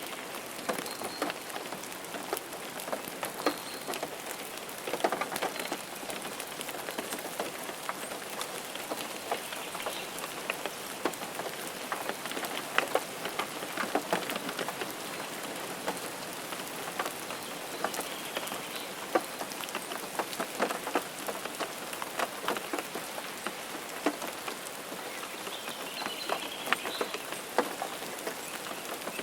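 Steady rain falling, with many individual drops hitting close by in sharp, irregular ticks.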